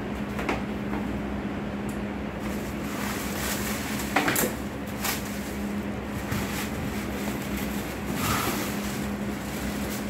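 Plastic wrapping crinkling and cardboard rustling as packed parts are pulled out of a box, with a few sharper crackles, the loudest about four seconds in. A steady low hum sits underneath.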